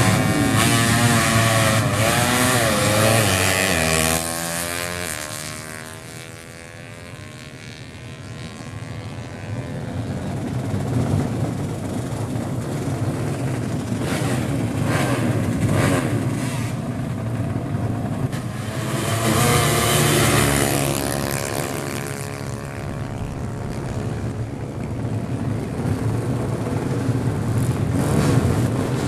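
Drag-racing motorcycle engines revving hard and accelerating, the pitch climbing and dropping back at each upshift before fading away down the strip. Engine noise swells again several times later.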